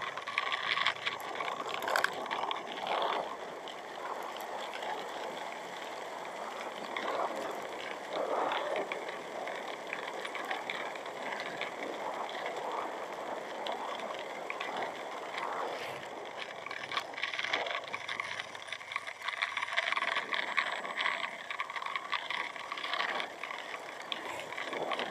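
Riding noise from a Honda Vario automatic scooter under way: a steady mix of engine and road noise with no clear engine note.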